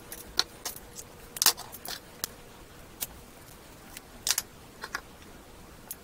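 Small metal tools and picks clinking and clattering as they are handled and set down on a tabletop: a dozen or so sharp, irregular clicks, loudest about one and a half seconds in and again past four seconds.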